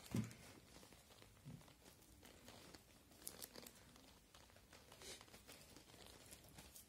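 Faint, sparse rustles and light clicks of hands twisting insulated wire leads together, with near silence between them.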